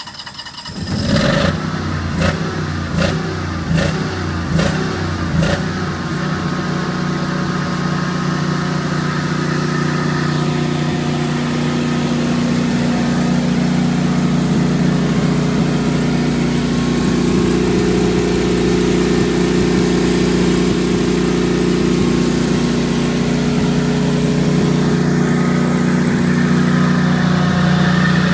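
Kohler 20RESA standby generator's air-cooled V-twin engine, running on LP gas, just started from the run button. It gives a few thumps about once a second at first, then settles into a steady full-speed run.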